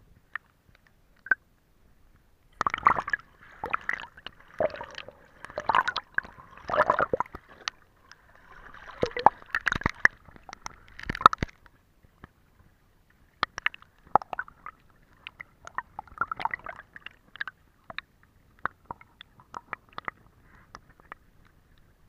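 Water gurgling and sloshing around a camera held underwater over pebbles, in irregular bursts with sharp clicks. It is busiest through the first half, then thins to scattered clicks after about twelve seconds in.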